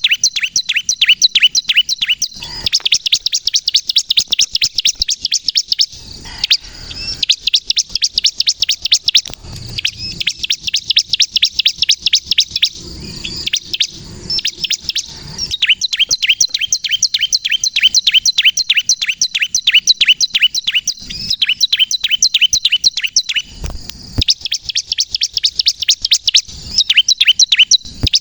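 Bar-winged prinia (ciblek kristal) singing in a fast, persistent run of sharp high chirps, about eight a second, in bursts of several seconds with short breaks. A few brief low knocks sound between the bursts.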